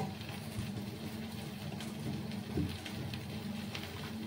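A steady low motor hum with a few faint light clicks.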